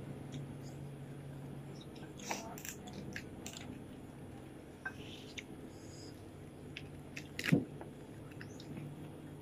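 Eating sounds close to the microphone: chewing and small crunches of crispy fried fish eaten by hand, with scattered light clicks and one louder knock about seven and a half seconds in.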